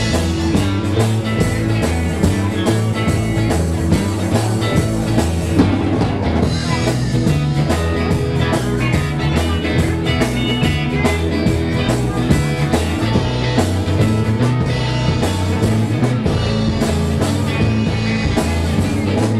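Live blues-rock band playing a shuffle blues, with electric guitars, bass and a drum kit.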